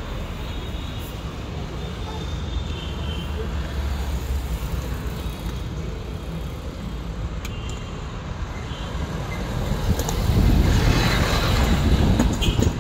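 Steady road-traffic rumble, with a vehicle passing louder about ten seconds in. A few light clicks of metal parts being handled.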